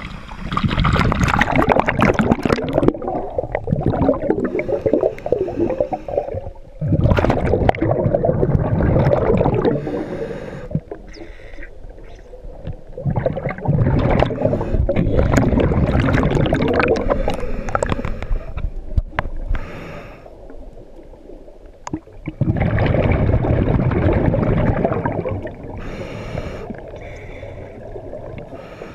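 Scuba diver breathing through a demand regulator underwater: long bubbling exhalations lasting a few seconds each, with quieter gaps and a faint hiss of inhalation between them.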